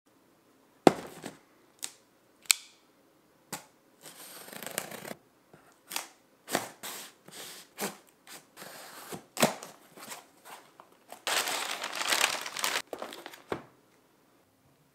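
A cardboard shipping box being opened: several sharp knocks and taps as it is handled, then a box cutter slicing packing tape, with scraping and tearing of tape and cardboard. The longest stretch of tearing comes a little past the middle.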